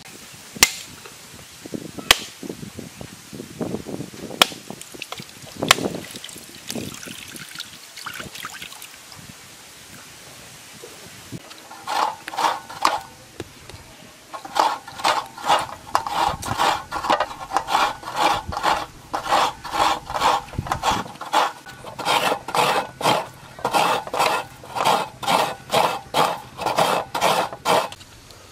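A few sharp knocks of a pointed tool driven into a coconut shell, with coconut water running out. Partway through, a coconut half is scraped against the teeth of a standing metal coconut grater in steady, rhythmic strokes about two a second, the shavings falling into a metal tray.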